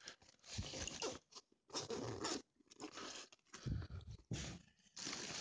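A fabric saddle bag being handled and turned over in the hands: irregular bursts of rustling and crunching.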